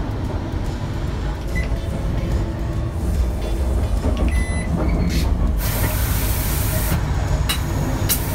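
Steady low rumble of a moving train, heard from inside its onboard toilet cubicle, with a few small clicks and a loud rushing hiss lasting about a second and a half, starting around five and a half seconds in.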